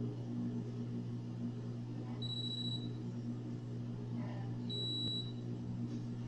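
E-Pex Pro electronic apex locator giving two short, high-pitched beeps about two and a half seconds apart. These are its audible signal of the endodontic file's position in the root canal. A steady low hum runs underneath.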